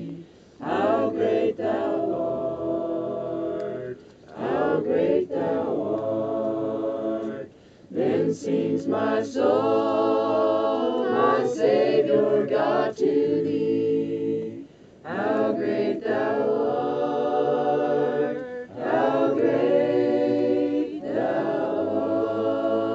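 A group of voices singing together a cappella, with no instruments. The phrases are long and held, with short breaks between them.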